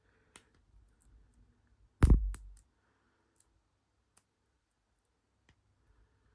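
Small metal clicks from a lock pick and tensioner working the pins of a tiny padlock, with one loud knock about two seconds in.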